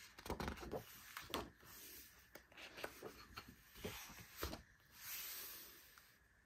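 Thick, heavy photobook pages being turned and pressed flat by hand: soft paper rustles and light taps, with a longer swish of a page turning about five seconds in.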